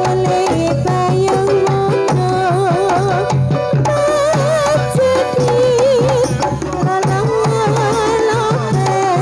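Live Dolalak music: a singer's wavering voice carried over a busy, steady beat of hand drums, with a low sustained bass note underneath.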